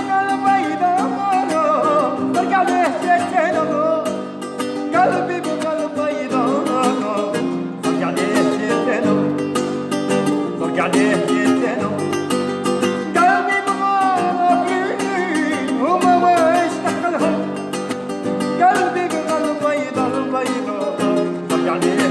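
Background music: a song with a singing voice over plucked-string accompaniment.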